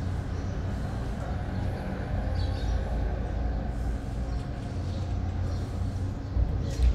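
Steady low background rumble with a few faint high chirps, and two short dull thumps near the end.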